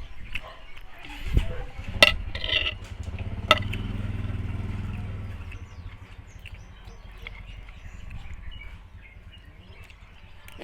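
A person eating chicken curry: a few sharp clicks and taps in the first three and a half seconds, then softer small mouth and eating noises. A low hum swells and fades for about two seconds in the middle.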